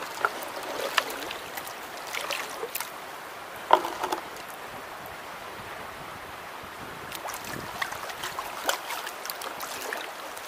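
Black plastic gold pan being worked underwater in a shallow stream: water sloshing and swirling through the pan as gravel and clay are washed out, over the steady rush of the stream. There are a few sharp clicks and knocks of stones shifting in the pan, the loudest about four seconds in.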